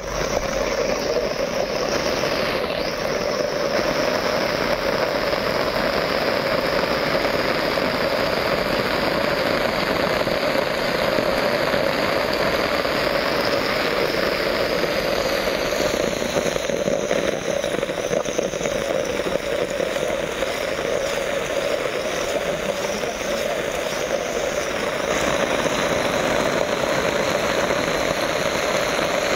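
Heavy rain falling on an umbrella held just over the phone, a loud steady hiss without a break.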